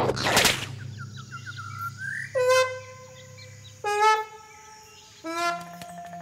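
Cartoon sound effects: a brief whoosh, a few short rising chirps, then three held horn-like tones one after another, each opening with a quick downward slide in pitch.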